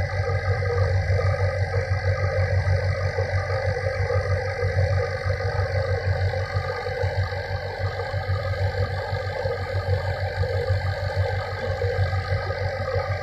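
Diesel tractor driving a thresher through its power take-off, the engine and threshing drum running steadily under load with a loud, even drone.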